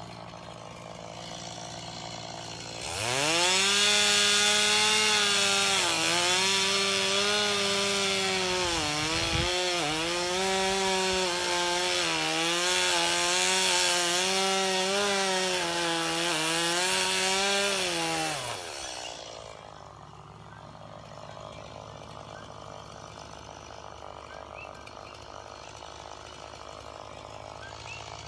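Two-stroke chainsaw cutting wood: it revs up sharply to full throttle, its pitch wavering and sagging repeatedly for about fifteen seconds, then winds down and drops back to a quieter steady low running.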